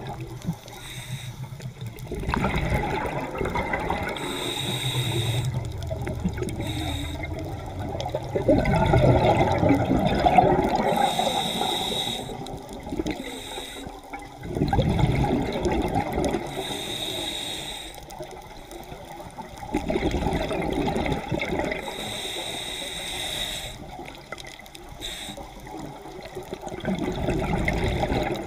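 Scuba regulator breathing underwater: a short hissing inhale through the regulator, then a long bubbling exhale, repeating about every five to six seconds.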